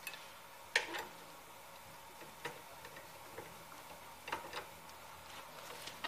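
Light metallic clicks and clinks from a long steel tool bar being worked against the front suspension parts, about eight scattered irregularly, the loudest about a second in.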